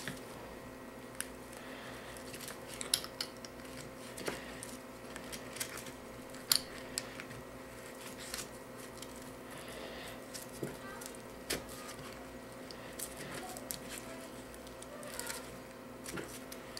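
Hands handling a fabric pliers carrying case and refastening its plastic belt clip and strap: irregular small clicks and rustles, over a steady low hum.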